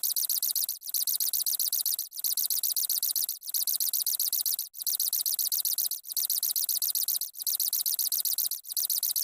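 Cricket chirping: high-pitched, rapid trills in evenly repeating phrases about every 1.3 seconds.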